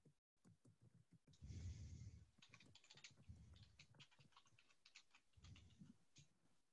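Faint typing on a computer keyboard: a quick, irregular run of key clicks with soft low thumps, from about a second and a half in until shortly before the end.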